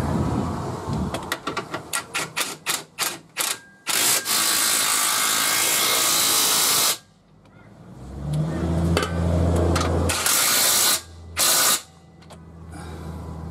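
AEG cordless impact wrench driving the lower control arm bolts: a run of short clicks and knocks, then the wrench hammering steadily for about three seconds, and two more short bursts near the end. A low droning hum comes in between the bursts.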